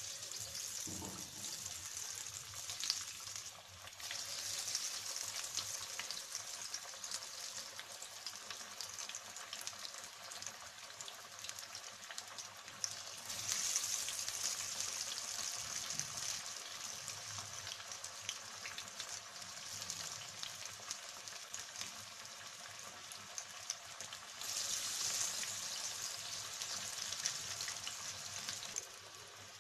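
Banana flower and chana dal vada deep-frying in hot oil: a steady sizzle with fine crackling. It grows louder for a few seconds about halfway through and again near the end.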